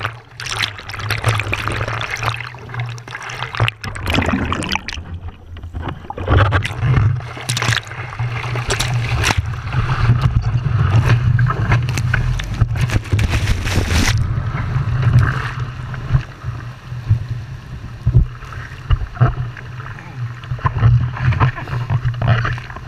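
Seawater splashing and rushing over a surfboard-mounted camera as a surfer paddles and a breaking wave washes over the board. Many sharp splashes over a steady low rumble.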